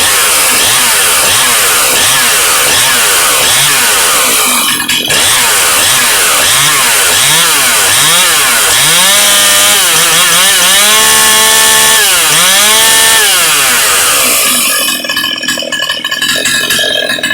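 Ported two-stroke Jonsered 535 chainsaw, with an opened-up muffler and advanced ignition, being revved with quick repeated throttle blips. It is then held at full revs a few times in the middle, and drops back to a rough idle near the end.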